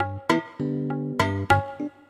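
Instrumental background music: a quick run of plucked notes over a bass line.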